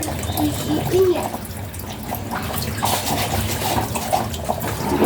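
Water running and splashing, with a few light knocks.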